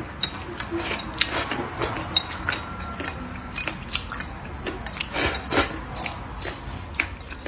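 Wooden chopsticks clicking and scraping against a ceramic bowl as the last noodles are picked up, with eating sounds, loudest about five seconds in.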